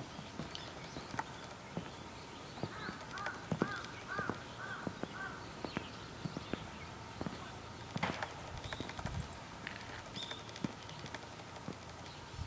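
Footsteps walking on gravel and stone paving, making irregular clicks and crunches. A bird calls a quick run of about six notes a few seconds in, with a few faint chirps later.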